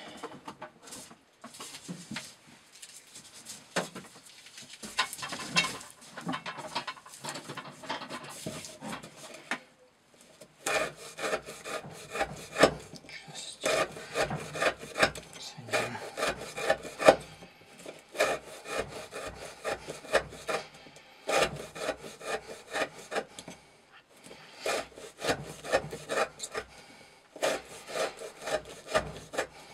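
Chris Reeve Sebenza 21 knife, with an S35VN steel blade, shaving curls off a wooden board in repeated strokes. Softer and more scattered for the first third, then a steady run of sharp scraping cuts about two a second, with a brief pause partway through.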